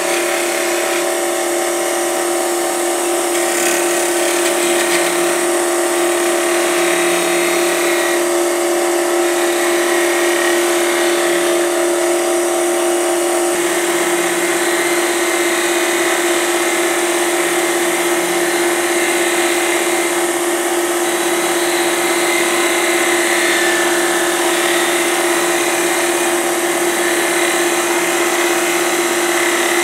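Grizzly G0733 wood lathe running steadily at about 2,100 RPM, its motor giving a steady whine, while a turning tool scrapes against the spinning cedar sphere.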